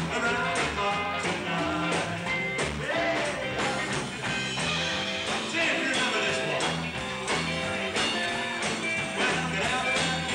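Live rock and roll band playing: electric guitars and drums with a steady beat.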